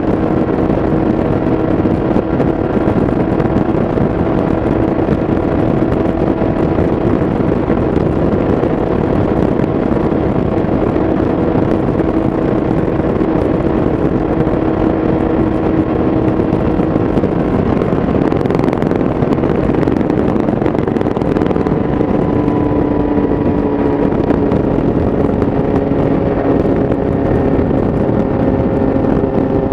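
2017 Yamaha YZF-R6's inline-four engine through an Akrapovic exhaust, held at steady cruising revs at highway speed with wind rush. The engine note drops slightly about two-thirds of the way in, then holds.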